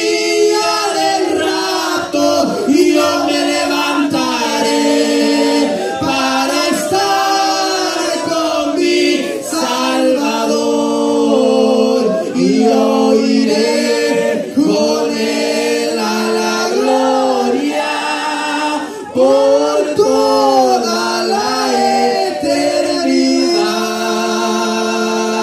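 Men singing a Spanish-language hymn into microphones, voices amplified through the church sound system.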